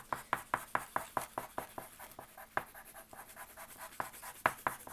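Colored pencil scratching across drawing paper in quick short strokes, about four or five a second.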